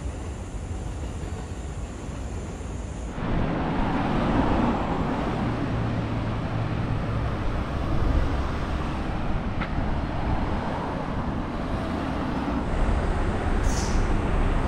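Street traffic noise: a steady wash of cars running on a city road, quieter for the first three seconds, then louder and closer.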